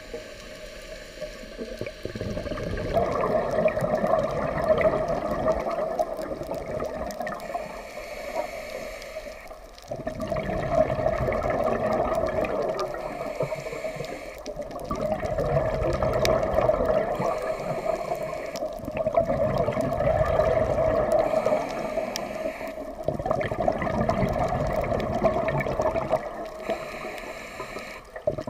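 Scuba diver breathing through a regulator underwater: about six slow breaths, each a short quieter inhale followed by a long rush of exhaled bubbles.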